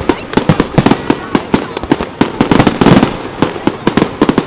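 Aerial firework shells bursting in quick succession: a dense run of sharp bangs, several a second.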